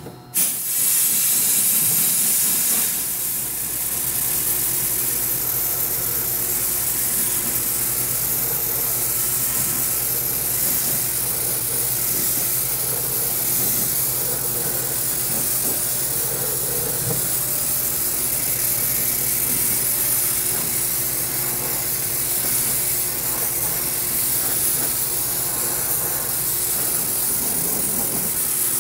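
Dry ice blasting gun spraying a steady hiss of compressed air and dry ice pellets at a low 24 PSI, blasting excess wax and grime off the car's trim and wheel-well. It starts abruptly just after the beginning and holds an even hiss.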